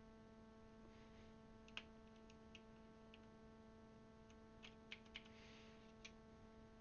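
Faint, irregular plastic clicks of keycaps being handled and pressed onto a mechanical keyboard's Cherry MX Blue switches, about nine over several seconds, over a steady background hum.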